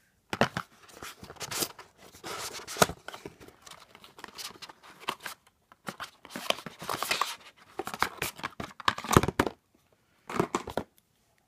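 A small cardboard advent-calendar box being opened and handled by hand: card scraping, rustling and crinkling in irregular bursts with small knocks, stopping briefly before one last short rustle near the end.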